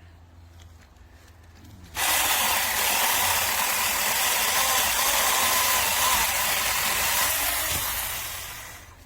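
Saker 6-inch cordless electric mini chainsaw running: its whine and chain noise start suddenly about two seconds in, hold steady for about six seconds, then die away near the end.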